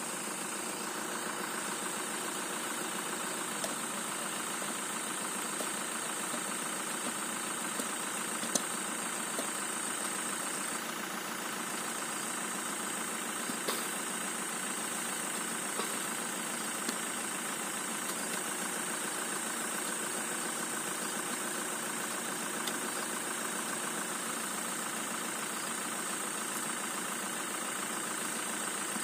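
An engine idling steadily, with a steady high whine above it and a few faint knocks as shovels and hoes work the soil of a grave.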